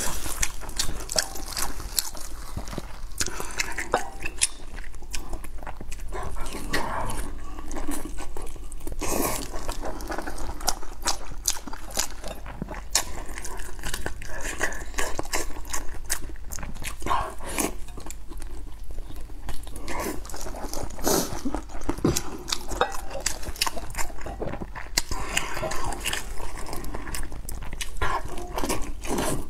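Close-miked eating: a person biting into and chewing a long sausage soaked in chili oil, with many short wet clicks and crunchy bites.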